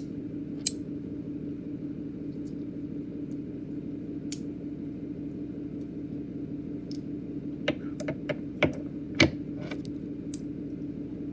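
Scattered light clicks and taps, sparse at first and then a quick run of them about eight to nine seconds in, over a steady low hum.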